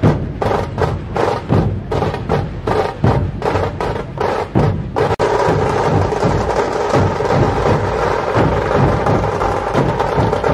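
Percussion-led music with a fast, steady drum beat. It cuts out for an instant about five seconds in, then continues with denser, busier drumming.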